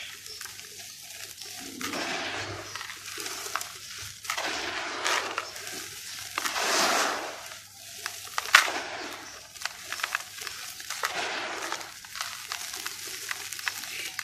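Dry, powdery red dirt scooped by hand and poured back into a plastic basin: a series of rushing pours a second or so long, one after another, with a few sharp crunches from lumps in the dirt, the loudest about eight and a half seconds in.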